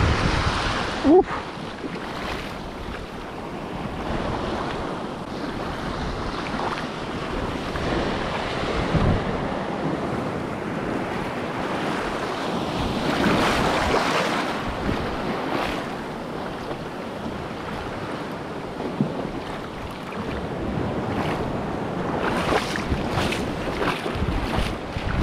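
Small waves washing and breaking over shoreline rocks, swelling a few times, with wind buffeting the microphone. A brief rising squeak about a second in.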